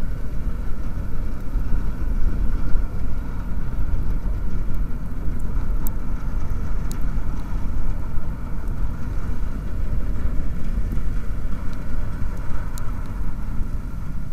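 Car ferry Konpira 2's engines giving a steady low rumble as the ship gets under way and pulls away from the quay, with a fainter hum above it.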